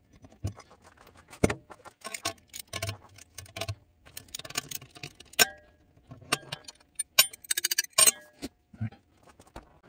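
Steel wrenches and a rifle barrel clinking and clanking against a steel-topped bench and barrel vise: a string of separate knocks and short ringing metal clinks, with a quick run of small rattling ticks near the end.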